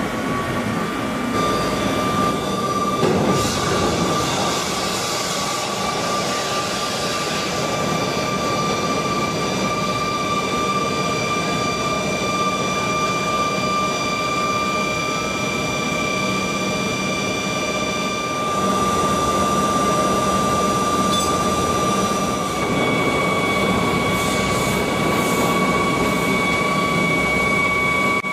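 Steady whine of machinery during a Boeing 777-300 landing gear swing test: several high steady tones over a rushing noise. A brighter hiss swells a few seconds in, and the sound steps up in loudness about two-thirds of the way through.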